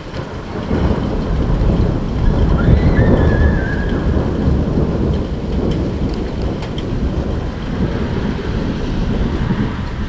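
Rolling thunder rumbling loudly, swelling over the first second, strongest about three seconds in and rolling on, over steady rain.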